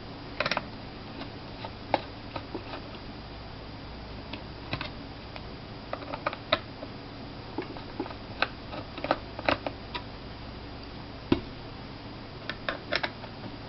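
Small Phillips screwdriver working the screws out of a laptop hard drive's metal case: irregular light clicks and taps of the tool on the screws and the metal, a few of them sharper.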